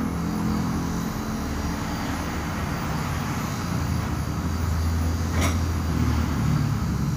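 Steady low engine-like rumble, with a single sharp metallic click about five and a half seconds in.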